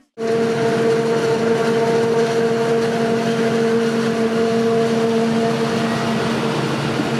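Claas Jaguar 860 forage harvester chopping maize and blowing it into a trailer, with a John Deere tractor running alongside: a steady machine drone with a constant hum and a noisy rush of chopped crop. It starts abruptly just after the opening.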